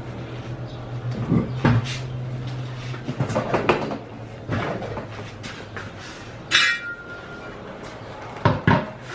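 Knocks and clinks of thin sheet-metal fender flares being handled and pressed against the car's fender, with a short metallic ring about six and a half seconds in.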